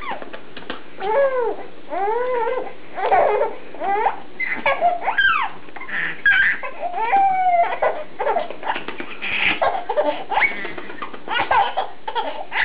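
A baby squealing and laughing with delight in a string of short, high cries that rise and fall in pitch, with brief pauses between them.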